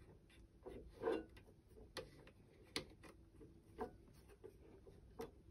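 A few faint clicks and light knocks, irregularly spaced about a second apart, from hands handling and fitting the parts of a beer engine pump on a countertop.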